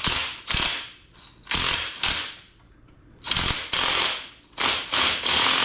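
Cordless impact wrench hammering on the centre bolt of a clamped truck leaf spring pack, working the nut loose in about five short bursts, with pauses between them.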